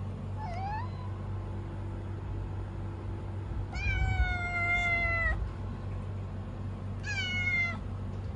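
Kitten meowing three times: a short call near the start, a long drawn-out meow of about a second and a half in the middle, and a shorter one near the end.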